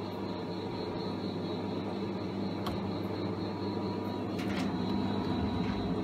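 Fisher & Paykel Pride top-loading washing machine running with a steady hum and a faint, thin high whine over it.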